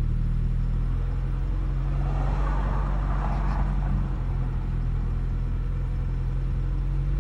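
A 1990 Geo Tracker/Suzuki Sidekick's 1.6-litre four-cylinder engine idling steadily after warm-up, running rough with a misfire. A rushing hiss swells and fades about two seconds in.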